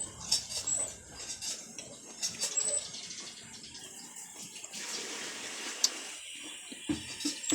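Close-up eating sounds of someone eating kinilaw na tuway, raw clams in vinegar, with rice: chewing and lip-smacking clicks, then a steady hiss of over a second about two thirds in, and a few more smacks near the end.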